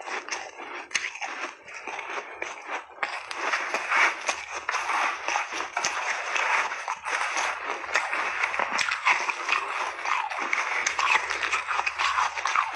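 Soft refrozen shaved ice crunching and crackling as gloved hands dig into and break up a tub of it, a dense run of small crisp crunches that grows louder about three seconds in.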